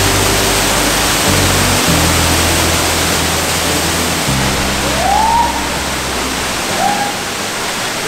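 Waterfall pouring into a plunge pool: a loud, steady rush of falling water, under background music with low bass notes that fades out about two-thirds of the way through.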